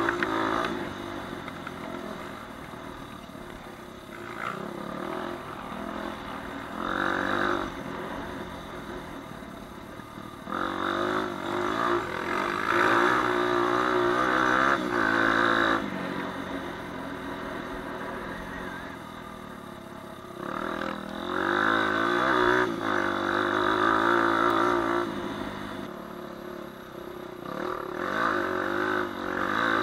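Four-stroke single-cylinder dirt bike engine heard close up from on board, revving up and easing off as the bike rides a rough trail. There are three stretches of hard throttle lasting several seconds each, with lighter, lower running in between.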